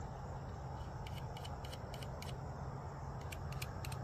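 Insects chirping in short, irregular clusters of high pulses over a steady low rumble.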